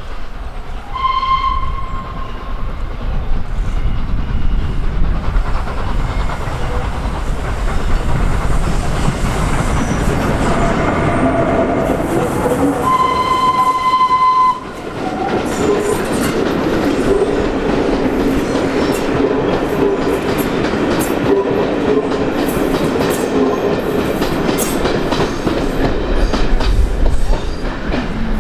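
LNER Peppercorn A1 three-cylinder 4-6-2 steam locomotive 60163 'Tornado' passing with its train: a short whistle about a second in and a longer whistle of about a second and a half near the middle, over the loud, steady rumble of the locomotive and then its coaches' wheels going by.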